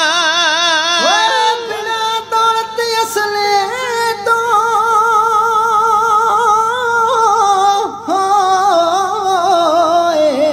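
Kavishari singing: a male voice holds long, wavering notes with no words, sliding down in pitch near the end.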